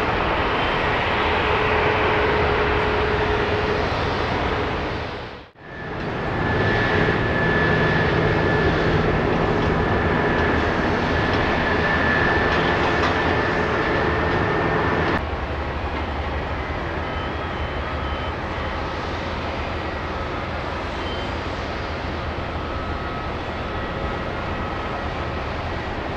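Steady airport apron noise as a tow tractor moves an airliner: a continuous roar with a faint high whine. It drops out briefly about five and a half seconds in and becomes somewhat quieter from about fifteen seconds.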